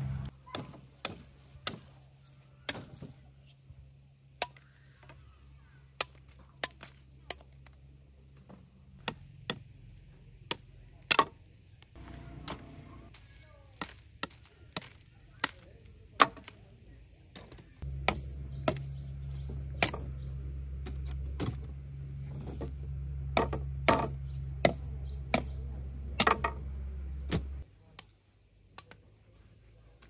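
A blade chopping sugarcane stalks in irregular strikes, about one or two a second. A low steady hum runs under the strikes for a stretch in the second half.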